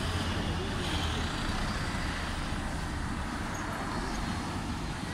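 Town-centre road traffic: a double-decker bus and cars passing, a steady noise of engines and tyres.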